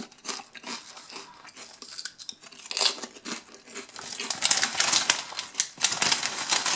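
Plastic crisp bag crinkling and rustling as a hand grips it and rummages inside for more crisps. The crinkling is light at first and grows dense and loud from about four seconds in.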